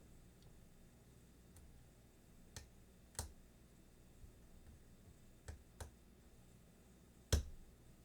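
Lock pick and tension wrench working the pins of an American Lock 1100 series padlock: five sharp metal clicks, spaced out, the loudest near the end.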